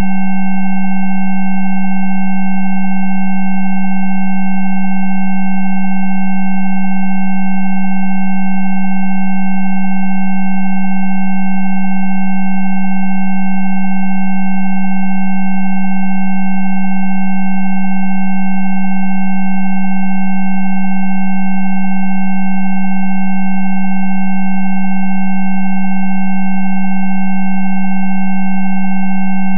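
Electronically generated Rife frequency tones: a strong, steady low pure tone with several weaker, higher pure tones layered over it. The tones hold constant pitch and level throughout.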